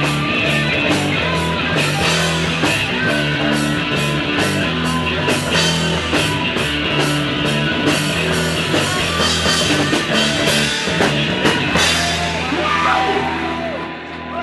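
Live rock band of drum kit, electric guitar and bass playing loudly with steady drum hits. About twelve seconds in the drumming stops and a final chord rings out and fades as the song ends.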